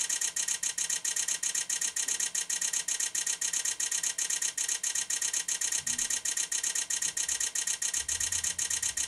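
Sony A1 camera firing a continuous high-speed burst, its shutter clicking in a rapid, even stream. The camera has slowed from its top rate as it writes to the card but keeps shooting without stopping.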